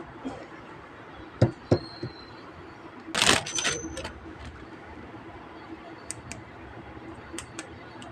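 Hard little plastic clicks and taps of small toy figures being handled: two sharp taps about a second and a half in, a short louder clattering burst around three seconds, and light ticks scattered through the rest.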